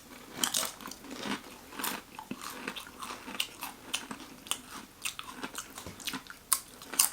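A person biting into and chewing a toasted sandwich close to the microphone: a run of short, crisp crunches at an uneven pace.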